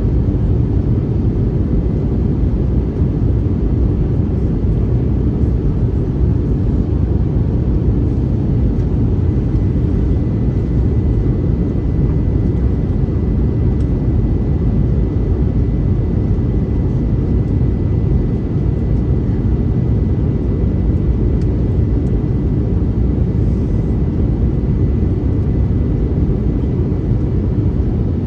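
Steady engine and airflow noise inside the cabin of an Airbus A321neo in flight: a constant deep rumble with a faint high whine held on one pitch.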